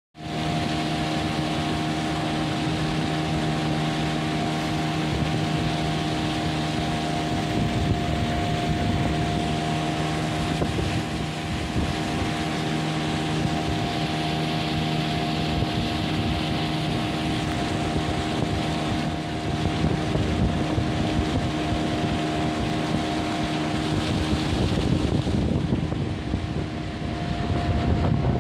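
Small fishing boat's motor running at a steady cruising speed, a constant hum over rushing water and wind on the microphone. The wind noise grows a little near the end.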